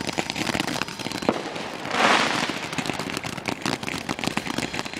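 Small ground firework going off with rapid, continuous crackling, and a louder hissing spray about two seconds in.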